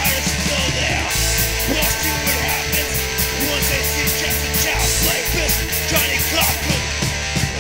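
Early-1980s punk rock recording: a band of electric guitar, bass and drums playing at full tilt, with cymbal strikes keeping a steady, quick beat.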